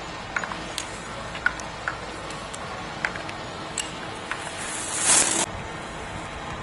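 Skis carving and scraping across groomed snow as a giant slalom skier passes close: a hiss that swells about four seconds in and cuts off suddenly. Faint scattered ticks over a steady outdoor hiss come before it.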